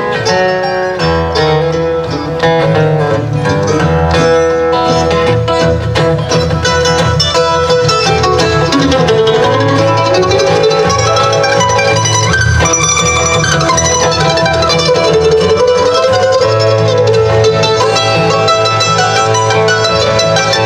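Live bluegrass instrumental break: acoustic guitars and a mandolin picking together, with a melody line that slides down and back up about nine seconds in.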